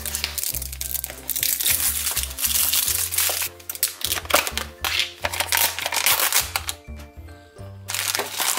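Plastic toy packaging crinkling and crackling as it is handled and opened, stopping for about a second near the end, over background music with a steady bass line.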